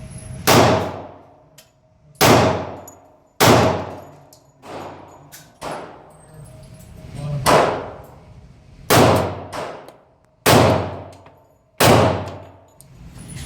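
Pistol shots at an indoor range: seven loud reports at uneven intervals, each ringing off the walls for about half a second, with a few fainter shots between them.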